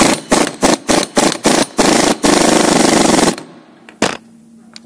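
Impact wrench with a 13 mm socket hammering the axle bolt off a snowblower wheel: a string of short rattling bursts for about two seconds, then one steady run of about a second, and a last short burst about four seconds in.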